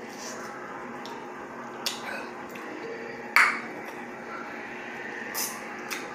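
Drinking from a plastic cup: sips and swallows, with a few short clicks and knocks, the loudest about halfway through.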